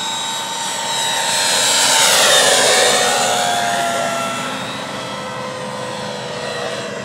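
Radio-controlled model aircraft engine flying past: it grows louder to a peak about two seconds in, then its pitch drops and it fades a little as it goes by.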